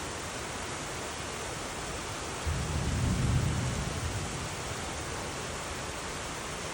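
Heavy rain falling as a steady hiss. About two and a half seconds in, a low rumble of thunder starts suddenly, swells and fades out over the next two seconds or so.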